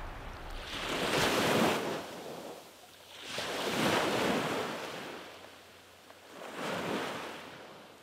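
Small waves washing onto a sandy shore, the surf swelling and falling away three times, about three seconds apart.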